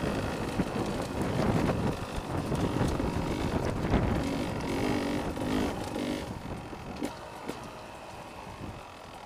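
Beta 300 RR two-stroke enduro motorcycle being ridden along a rough stony byway, with the engine running and wind rushing on the microphone. The engine note is clearest about four to six seconds in, then the sound grows quieter towards the end as the bike eases off.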